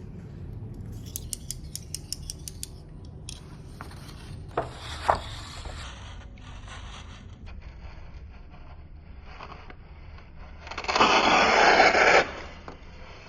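Paper being cut: a quick run of about ten small snipping ticks, two sharp clicks with a scratchy rasp a few seconds in, then a loud scraping cut lasting a little over a second near the end.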